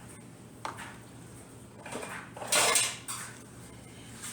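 Kitchen bowl and utensils being handled: a few light clinks and knocks, with a louder clatter about two and a half seconds in.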